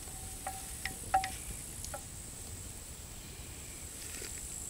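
Light metallic clinks of camp cookware, a handful in the first two seconds, each ringing briefly, over a faint steady high-pitched drone.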